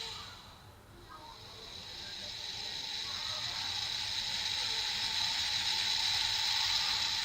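Electronic sound effect from a Kamen Rider Ryuki CSM transformation belt toy's speaker: a hissing noise with a thin high tone that swells slowly over several seconds, following the fading tail of a louder effect.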